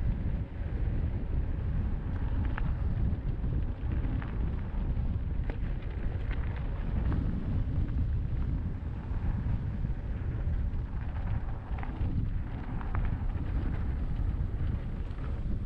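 Wind buffeting a helmet-mounted action camera's microphone while riding a mountain bike on a dirt track, with a low, steady rumble from the tyres and a few scattered light clicks and rattles.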